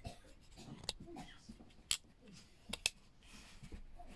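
Sharp clicks and handling noise from a Canon AV-1 35mm film camera being worked at its battery compartment: about four clicks, one near 1 s, a loud one near 2 s and two close together near 3 s.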